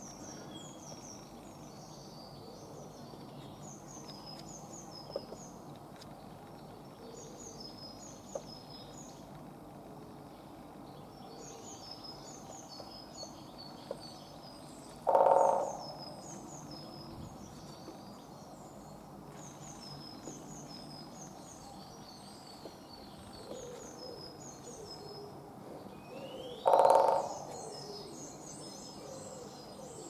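Great spotted woodpecker drumming on a post: two short, loud drum rolls of about half a second each, one about halfway through and one near the end. Other birds keep up high-pitched chirping throughout.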